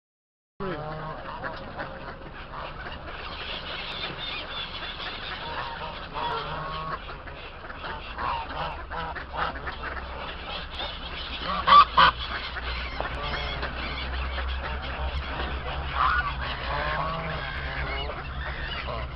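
A flock of waterfowl calling together: geese honking and mallard ducks quacking in a constant overlapping clamour, cutting in abruptly just after the start. There are two sudden loud sounds close together about twelve seconds in.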